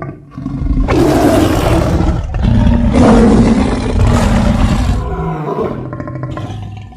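Sabre-toothed cat (smilodon) creature sound effect: two long, loud, rough roars back to back, trailing off into a lower, weaker growl.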